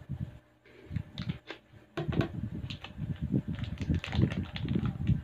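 A plastic food packet crinkling and crackling as it is snipped with scissors and then pulled open by hand: a few scattered clicks at first, then a dense run of irregular crackles from about two seconds in.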